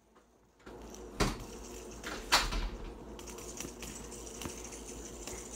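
A plastic fidget spinner being handled and flicked: two sharp clicks, about a second in and again near two and a half seconds, and a lighter one later, over a faint steady hum.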